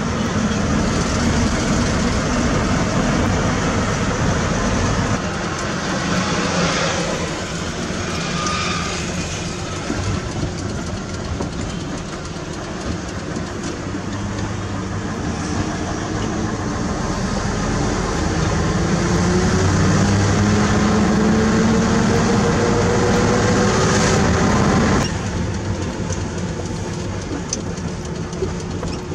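Diesel engine of a Mitsubishi Fuso self-loader truck heard from inside the cab while driving, over steady road noise. Over several seconds the engine note climbs steadily in pitch as the truck accelerates, then drops off suddenly near the end.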